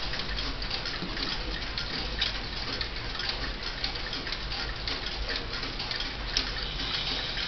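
Howard Miller 612-429 key-wound mantel clock's mechanical movement ticking steadily, with a sharper click near the end.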